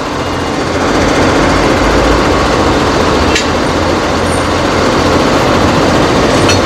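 Crane-manipulator tow truck's diesel engine running steadily, with a couple of sharp clicks, one about three seconds in and one near the end.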